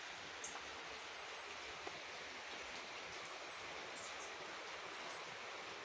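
A small bird chirping in runs of three or four short, high notes, a run about every two seconds, over a faint steady hiss of outdoor background.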